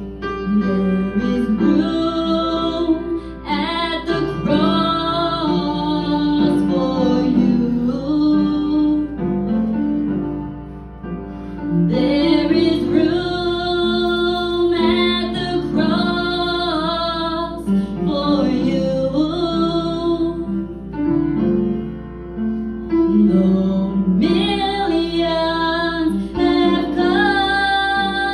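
Worship song: a woman singing over sustained keyboard chords, in long phrases with two short breaths between them.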